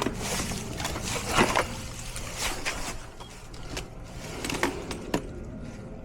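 Rustling and scraping with a few sharp knocks, as someone crawls and handles things in a cramped crawl space.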